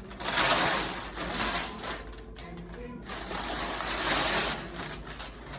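Paper being torn, in several long rasping rips.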